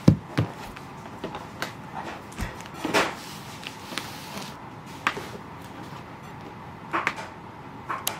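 A handful of irregular knocks and clicks over a steady background hiss, the loudest right at the start.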